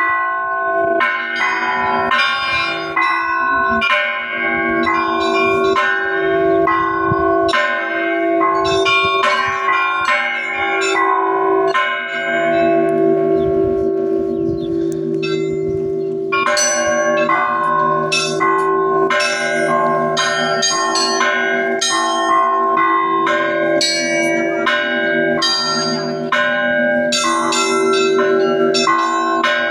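Russian Orthodox church bells being rung: rapid, overlapping strikes of the small high bells ring over the steady hum of larger, deeper bells. The small bells fall almost silent for a few seconds about halfway through, then resume.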